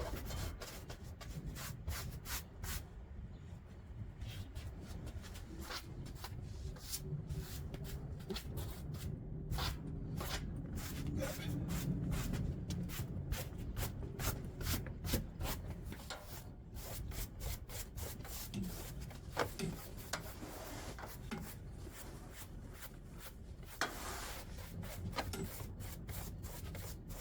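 Broom sweeping sand and dirt across the floor of a van: short, scratchy bristle strokes at an uneven pace.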